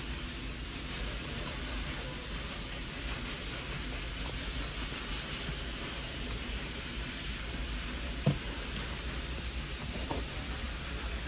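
Steady hiss with no clear pitch, with one faint soft knock about eight seconds in.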